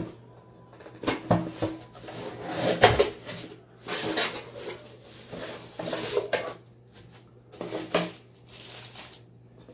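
A cardboard box being opened by hand: flaps pulled open and scraping, then tissue paper and a plastic bag rustling as the contents are pulled out, in irregular bursts with the loudest about three seconds in.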